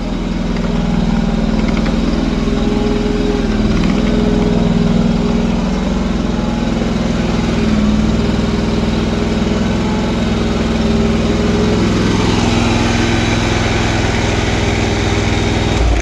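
Carbureted engine of a self-propelled TMR feed mixer running steadily as the mixer drives, its note shifting about twelve seconds in.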